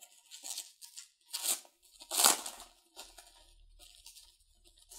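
Plastic shrink-wrap being torn and crinkled off a stack of game cards, in several short crackly bursts. The loudest rip comes a little past two seconds in.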